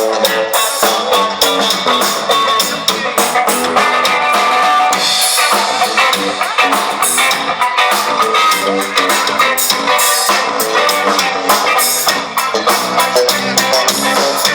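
A band playing, with guitar over a drum kit keeping a steady beat.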